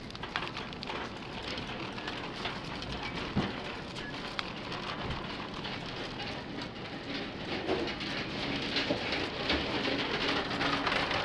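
Thin plastic grocery bags crinkling and rustling in a shopping cart as it is pushed along, with the cart's wire basket and wheels rattling, all picked up close by a chest-worn body camera. A dense, continuous crackle with many small clicks.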